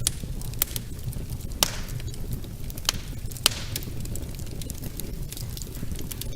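Wood fire burning in a fireplace: a steady low rumble of flames with sharp, irregular crackles and pops from the burning logs.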